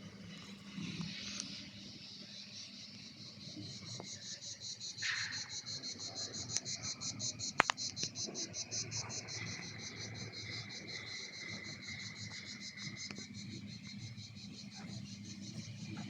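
Insect chirping in a rapid, even train of high-pitched pulses over a faint steady hum, with one sharp click about halfway through.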